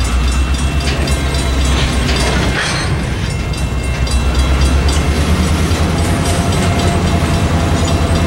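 Covered hopper car of a slow freight train rolling past, its wheels rumbling steadily with repeated clicking and clacking over the rails.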